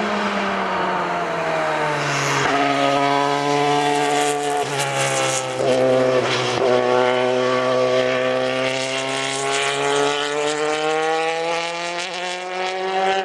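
Open-wheel formula race car engine at racing revs. The note drops through several quick gear changes in the first half, then climbs steadily as the car accelerates away, with a whine from the gearbox.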